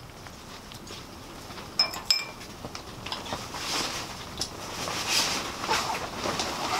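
A metal fork clinks twice against a small ceramic condiment dish, ringing briefly, then softer scraping and rustling follow as the fork scoops toppings onto the food.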